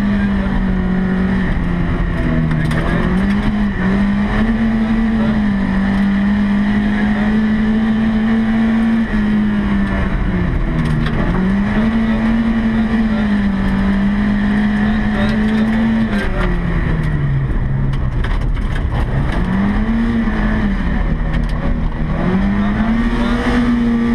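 Volvo 240 rally car's engine heard from inside the cabin at speed, revs held high, then dropping off and climbing again a few times as the driver lifts and gets back on the throttle. Steady rumble of tyres on the gravel road underneath, with scattered small clicks.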